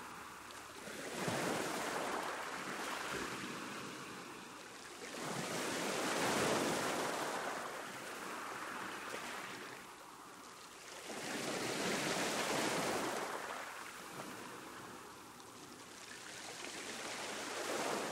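Ocean waves breaking on a shore, the surf swelling and falling back in slow surges, four of them, several seconds apart.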